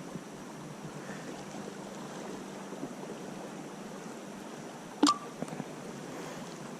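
Faint steady river-water ambience, with a single sharp click about five seconds in.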